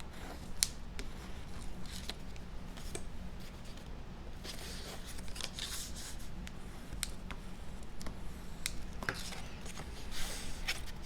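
Cardstock being folded along score lines by hand: scattered small clicks and taps, with stretches of rustling and creasing about halfway through and again near the end.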